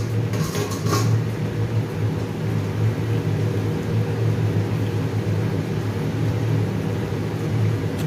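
A steady low mechanical hum in a kitchen, with fish simmering in a wok on a gas hob. A few light clinks in the first second.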